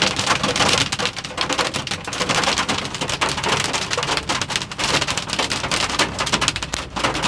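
Hailstones pelting a car in a dense, unbroken clatter of many sharp hits.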